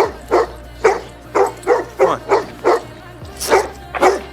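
A dog barking over and over, about two to three sharp barks a second with a short pause near the end, over slow music with a steady bass line.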